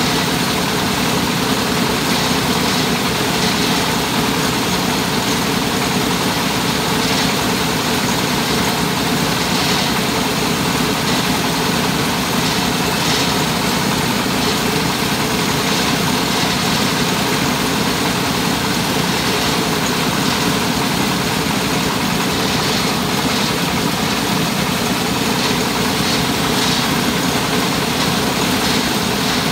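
Truck-mounted mobile rice hulling machine (selep) running steadily under its engine, a constant loud mechanical noise that holds the same level throughout.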